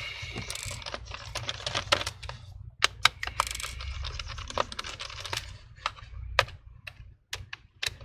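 Phillips screwdriver backing out the small screws of an Asus Vivobook laptop's bottom cover: a run of irregular sharp clicks and ticks from the driver and the loosened screws, over a low steady hum.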